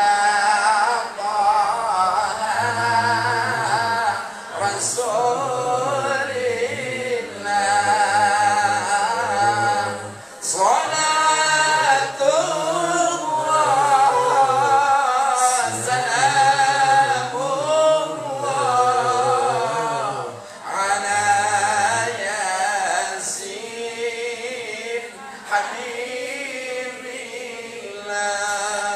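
A man's solo voice singing Arabic recitation in the ornamented tarannum style of a qari, sung into a hand microphone: long held phrases with wavering, sliding pitch, broken by short pauses for breath, a little quieter near the end.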